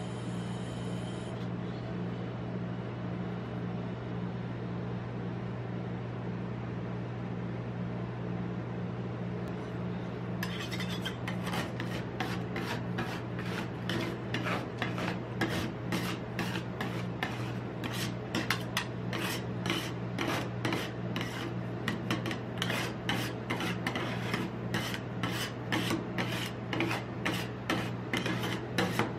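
Two metal spatulas rapidly chopping and scraping on the steel cold plate of a rolled-ice-cream machine, breaking up freezing coconut, starting about ten seconds in. A steady low hum runs underneath.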